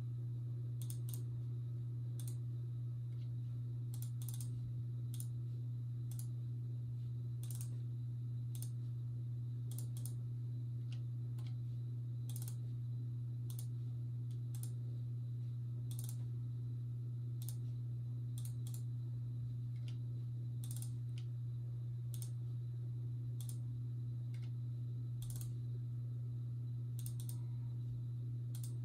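Scattered clicking at a computer, irregular and about one click a second, over a steady low hum.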